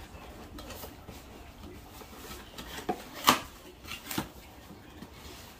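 A few scattered clicks and knocks from parts being handled, with light rubbing between them. The loudest is a sharp knock about three seconds in.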